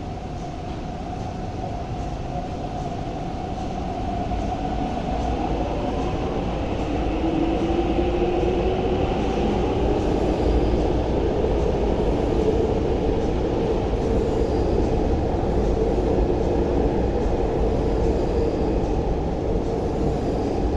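MTR Tuen Ma Line C-train electric multiple unit pulling out of the platform. Its traction motors whine, rising in pitch as it gathers speed, while the rumble of the passing cars grows louder over the first ten seconds and then holds steady.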